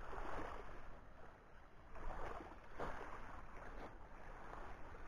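Small waves washing on a pebble beach, a faint, uneven wash that swells now and then.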